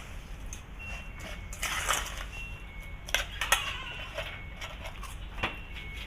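Spoon clinking and scraping in a bowl as the seasoned pork nam tok salad is stirred together, with a few sharp clinks about halfway through and another near the end.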